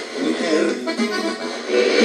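Music playing through the small speaker of a vintage Panasonic flip clock radio, with held pitched notes and almost no bass.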